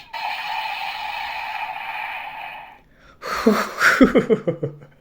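Electronic sound effect from a toy transformation belt's speaker: a held synthetic tone with several pitches that cuts off under three seconds in. After a short pause, a brief burst of vocal sound follows near the end.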